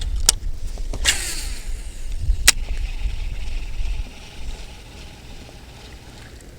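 Strong wind buffeting the microphone as a low rumble, which eases after about four seconds, with three sharp clicks in the first few seconds.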